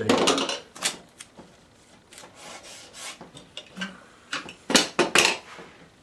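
A painting and a card mount being handled on a wooden easel: short scrapes, rubs and knocks, the loudest a cluster about five seconds in.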